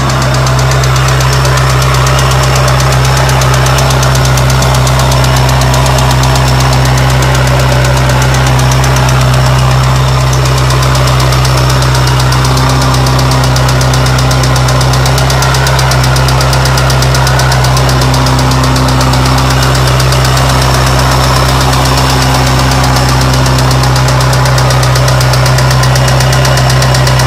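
1993 Mazda Miata's 1.6-litre four-cylinder engine idling steadily with a loud, rapid, even clack. The owner can't yet tell whether it is a failed hydraulic lash adjuster or a rod knock.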